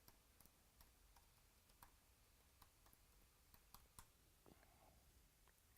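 Near silence with faint, scattered clicks of a computer mouse, about a dozen irregularly spaced over a few seconds.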